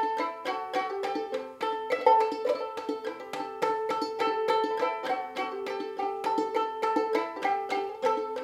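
Gold Tone banjo ukulele tuned aCEA, played clawhammer style: a fast, steady stream of bright plucked notes in A minor with a repeating drone note.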